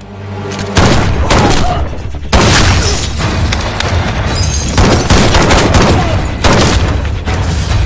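Film shootout soundtrack: gunfire bursts with booming impacts mixed over music, in four loud surges that each start abruptly, one to two and a half seconds apart.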